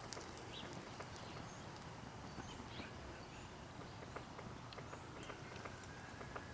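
Faint, irregular crackling and popping from a burning plastic birthday candle soaked in cooking oil and alcohol, with a few faint high chirps.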